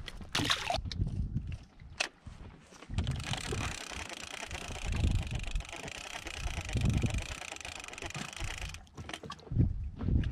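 Water sloshing against a drifting inflatable boat, with wind noise, swelling every couple of seconds. There are a few sharp knocks in the first two seconds.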